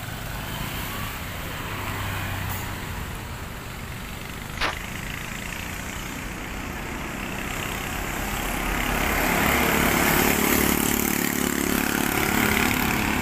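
Heavy diesel tractor-trailers hauling excavators pass by with a steady engine drone and tyre noise, growing louder from about eight seconds in as the next truck approaches. There is one short sharp knock about four and a half seconds in.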